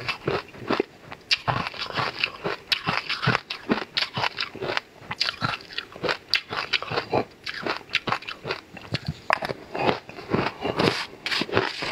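Crunching and chewing of a mouthful of purple shaved ice: a rapid, irregular run of crisp crunches.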